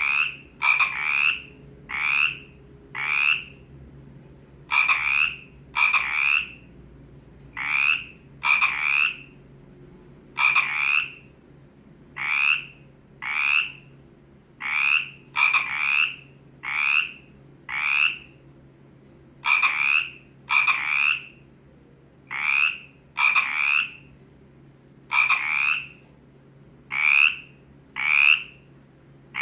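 Frog croaking over and over, about one short croak a second, often in quick pairs or threes, over a faint steady low hum.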